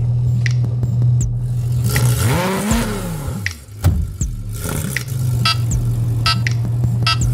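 Car engine running with a steady low drone. About two seconds in, the pitch rises and then falls again. After a brief dip the steady drone comes back.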